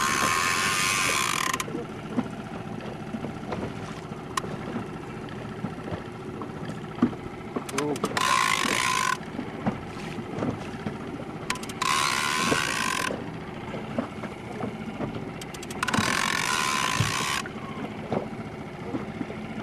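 Big-game fishing reel's ratchet buzzing in four bursts of a second or so, a few seconds apart, as line goes on or off the reel while a large amberjack is fought on a bent rod.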